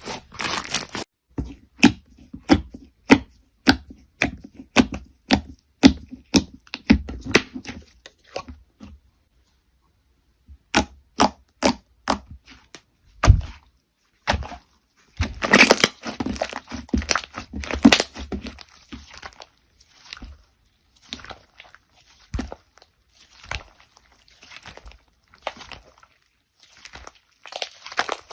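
Crunchy slime being squeezed and pressed by hand, giving a quick series of crisp crackles and pops. The crackling falls silent for a second or so about nine seconds in, then carries on.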